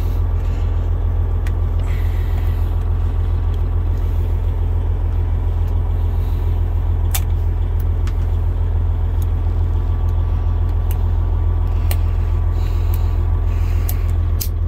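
Freightliner Coronado's diesel engine idling steadily, heard from inside the cab, with a few scattered sharp clicks as the old dash wiper switch is pried at.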